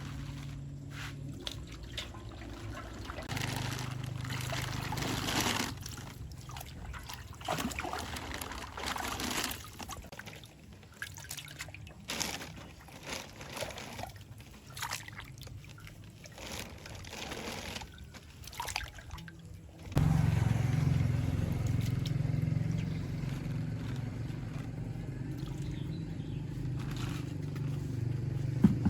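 Water sloshing and trickling, with a faint low engine hum beneath. About two-thirds of the way through it changes abruptly to a louder, steady small engine running.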